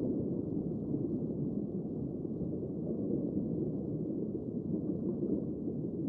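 Steady, muffled low rumble of underwater ambience, with nothing in the upper range.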